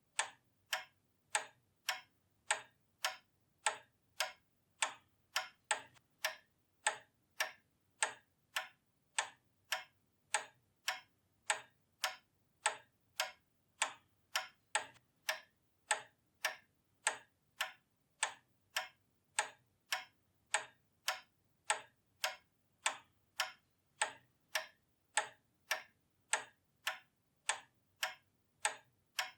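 Pendulum clock ticking steadily, about two sharp, even ticks a second.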